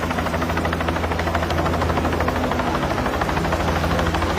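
Helicopter running steadily, with a low drone and a fast, even rotor beat.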